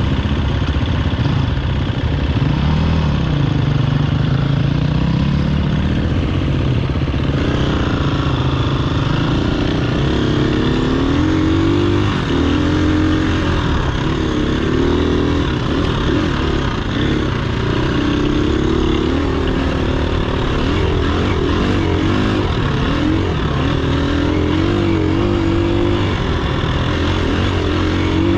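Dirt bike engine running on a trail ride, its pitch rising and falling repeatedly as the throttle is worked.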